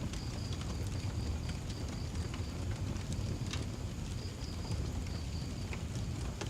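Wood fire crackling with scattered sharp pops over a steady low rumble. A high chirping call pulses about four times a second alongside it, stops for a second or two midway, then starts again.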